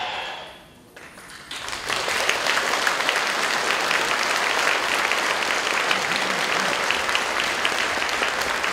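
Stage music fades out, and about a second and a half in an audience breaks into steady applause that carries on at full strength.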